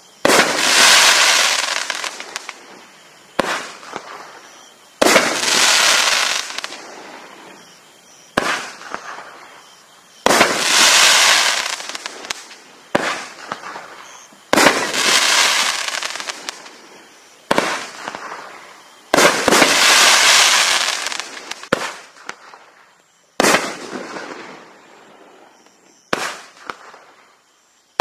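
A 500-gram consumer firework cake, 'The Day After Roswell', firing its 1.4-inch shots one after another, about every four and a half seconds. Each shot is a sharp launch thump, then about a second and a half later a loud break that trails off in a fizzing crackle lasting a couple of seconds.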